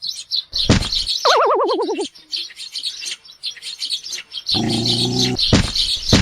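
Sparrows chirping rapidly and continuously. About a second in, a wavering tone slides downward. Later comes a short, low, steady buzzing tone, with a couple of sharp clicks.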